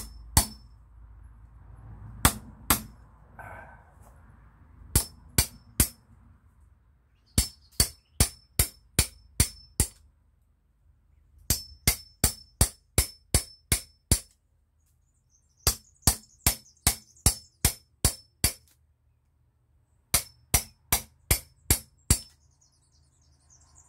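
Hammer blows on a steel tool driven into a tree branch to take out a walking-stick billet: sharp metallic strikes with a brief high ring. They come in runs of about three blows a second, with pauses of a second or two between runs.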